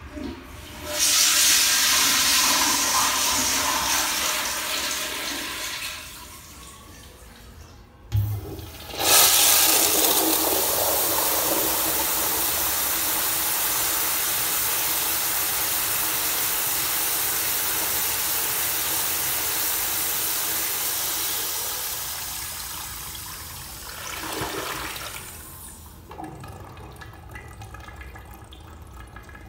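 Commercial toilet with a chrome manual flushometer valve flushing twice. First comes a short rush of water, then a click about eight seconds in. A second, longer rush of water follows, holds steady and tapers off near the end as the flush finishes.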